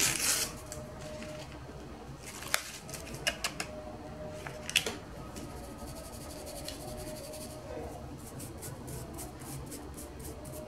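Small plastic sieve being handled and tapped to sift baking powder into a steel bowl: a few scattered clicks, then near the end a quick even patter of soft ticks, about four or five a second.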